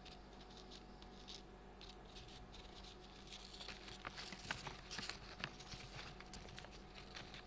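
Faint crinkling and rustling of a thin clear plastic pouch and paper as sheets of glitter paper are pushed into it, with small crackles that grow busier about halfway through.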